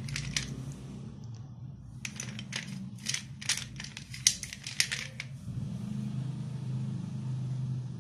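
Slate pencil pieces clicking and clinking against each other and the steel plate as a hand sorts through them: a few clicks right away, then a run of about ten sharp clicks over three seconds. A low steady hum runs underneath and is louder from just past the middle.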